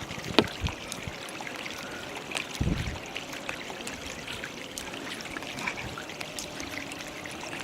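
Kayak paddling: water trickling and dripping off the paddle blades and splashing around the hull, with a sharp knock about half a second in and a low thump near three seconds.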